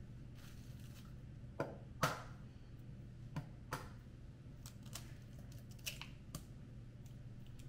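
Eggs being tapped and cracked open over a stainless steel mixing bowl: a few sharp taps and clicks, the loudest about two seconds in with a short metallic ring, then small crackles as the shell is pulled apart near the end. A low steady hum runs underneath.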